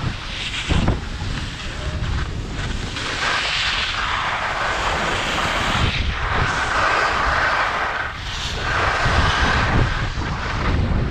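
Wind buffeting an action camera's microphone during a ski descent, with the skis hissing and scraping over snow in swells every few seconds.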